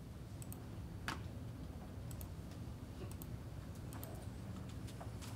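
A handful of light clicks and taps at uneven intervals, the most distinct about a second in, from input on a computer or touchscreen, over a steady low room hum.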